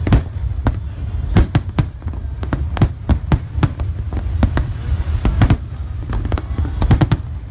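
Fireworks display going off: a rapid, irregular barrage of bangs and cracks, several a second, over a continuous low rumble.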